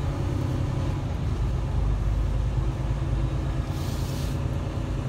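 Semi truck's diesel engine running at low speed, heard from inside the cab as a steady low rumble, with a brief hiss about four seconds in.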